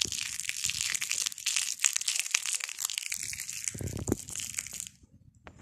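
A packet being crinkled and rustled without a break, with a dull low knock about four seconds in, then the crinkling stops abruptly near the end.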